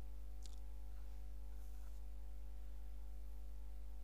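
Steady electrical mains hum in the recording: a constant low buzz with a stack of evenly spaced overtones. A faint tick about half a second in.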